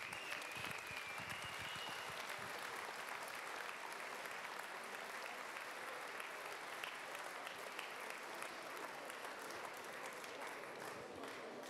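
Hall audience applauding steadily throughout, with a thin high whistle during the first couple of seconds.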